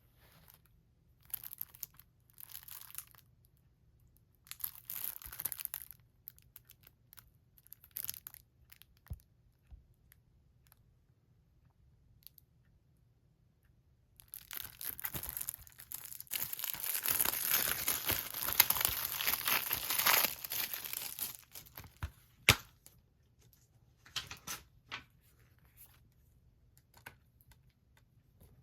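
Plastic shrink-wrap being torn and peeled off a Blu-ray case: scattered short crinkles, then a long stretch of tearing and crinkling lasting about seven seconds past the middle. A single sharp click follows, with a few more brief rustles near the end.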